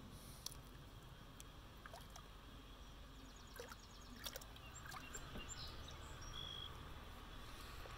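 Faint outdoor background: a steady low rumble with a few faint clicks, and a few short, high chirps in the second half.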